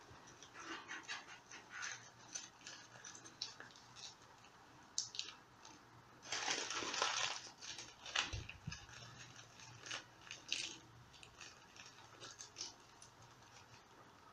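Crumpled paper crinkling and rustling as it is squeezed and pressed between the hands, with a louder stretch of crinkling about six seconds in and a soft knock shortly after.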